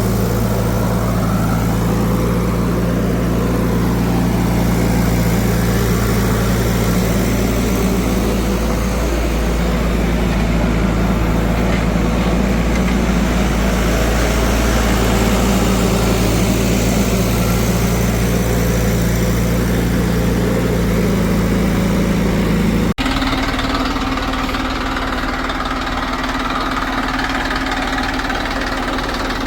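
A heavy machinery engine running steadily at a constant speed. About 23 seconds in, the sound cuts abruptly to a different engine running with a higher, steady note.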